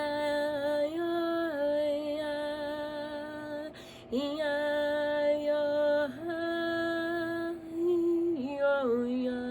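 A woman's voice singing long, held wordless notes of vocal toning, sliding smoothly from one pitch to the next, with a short break a little under four seconds in.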